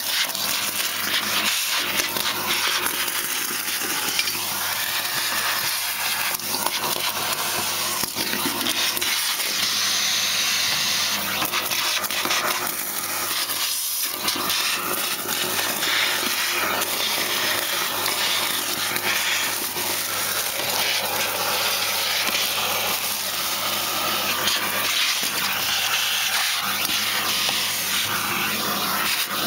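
Vacuum cleaner running steadily through a homemade cyclone dust separator while sucking up dry leaves and shed debris: a constant rushing hiss over a low hum, with frequent crackles and ticks as debris rattles through the pipe.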